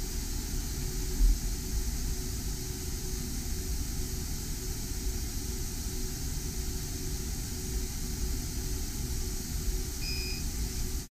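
Laser engraver running a job on a glass held in its rotary attachment: a steady machine hum with a constant hiss, and a brief low bump about a second in. A single short, high beep sounds about ten seconds in.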